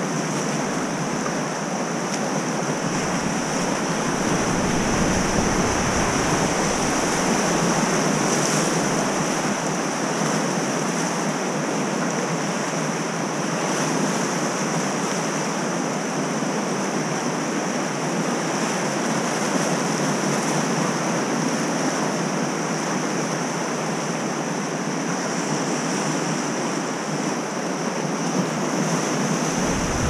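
Whitewater rapids rushing and churning steadily around an inflatable raft. Wind buffets the microphone briefly about three seconds in and again near the end.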